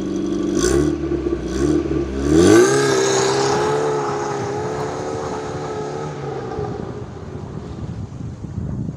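VAZ car engine and exhaust, running with the catalytic converter replaced by a straight spacer: two short throttle blips, then a bigger rev about two and a half seconds in that is held. After that the engine note fades steadily.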